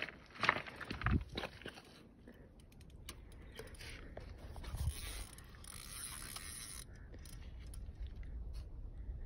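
Footsteps crunching on loose shore pebbles, a few sharp crunches in the first second or two. A faint low rumble with scattered small clicks follows.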